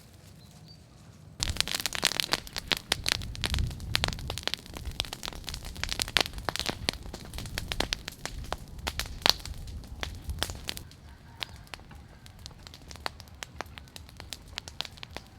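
Dense crackling and snapping that starts suddenly about a second and a half in and thins out after about ten seconds.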